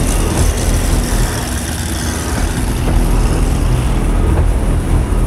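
C6 Corvette Z06 V8 engines idling up close with a steady low rumble.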